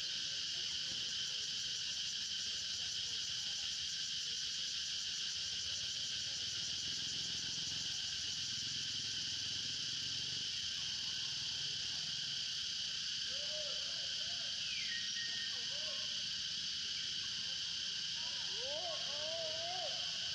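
Steady, high-pitched insect chorus, unbroken throughout. Faint short wavering calls come in now and then in the second half, most of them near the end.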